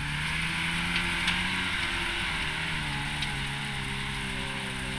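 Geo Tracker's engine running under load as the lifted off-road truck crawls up a steep bank, its pitch holding fairly steady with a slight waver. Two sharp knocks come about a second and three seconds in.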